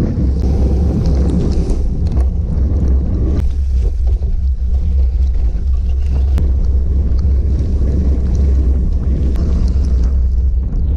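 Wind buffeting the camera microphone of a gravel bike ridden at speed on wet ground, with tyre and spray noise and scattered sharp ticks.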